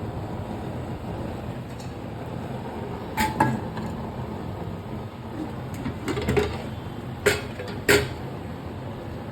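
Kitchen handling sounds: a few sharp knocks and clinks of utensils and cookware, the loudest two near the end, over a steady low rumble.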